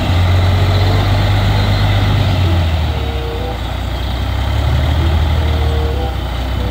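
Diesel engine of a three-axle tipper truck running steadily at a low speed, its note dropping slightly about two and a half seconds in.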